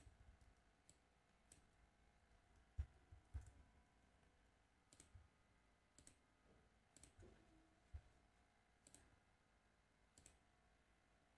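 Faint computer mouse clicks, about ten spaced irregularly, with a couple of soft low thumps and near silence between them.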